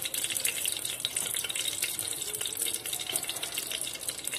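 Ghee melting and sizzling in the base of a hot pressure cooker: a steady crackling hiss.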